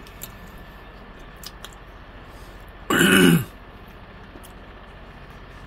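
A man's single loud throat sound about halfway through, half a second long and falling in pitch, over faint clicks of chewing and a fork on a paper plate.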